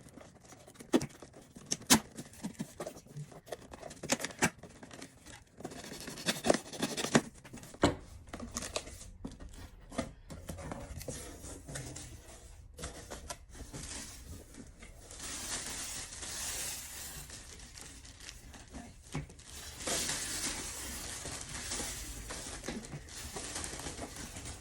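Packaging being opened and handled: sharp clicks and knocks during the first eight seconds or so, then longer stretches of tearing and crinkling of paper or plastic wrapping.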